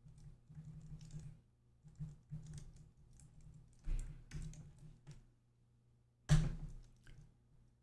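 Typing on a computer keyboard: irregular runs of keystrokes, with two sharper, louder clacks about four and six seconds in.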